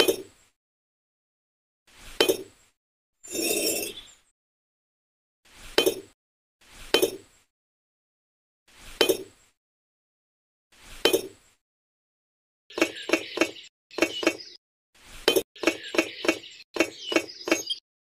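Miniature clay bricks being set into cement mortar and tapped into place: short clinks about every two seconds, with a longer scrape of brick against brick near the start, then quick runs of clicks in the last five seconds.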